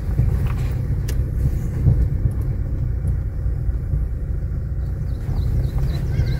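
Low, steady rumble inside a car's cabin as it drives along a rutted, muddy dirt road, with a few knocks from the bumpy surface.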